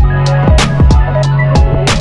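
Background music with a deep bass line and a punchy drum beat.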